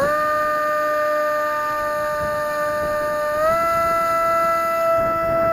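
Scorpion 3026 1600kv brushless motor and propeller of a Multiplex Dogfighter RC plane whining steadily at high power, the pitch stepping up slightly a little past halfway. Wind rumbles on the microphone underneath.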